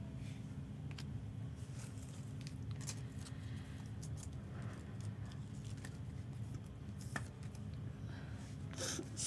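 Faint rustling and light clicks of trading cards being handled and flipped through, over a steady low hum, with a brief louder rustle near the end.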